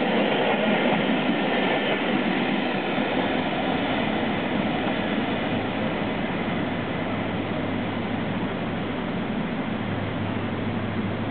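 Railway coaches rolling past at speed, the rumble of wheels on rail slowly fading as the train draws away.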